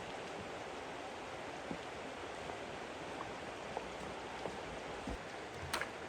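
Steady hiss of water, with scattered faint clicks and two sharper knocks near the end.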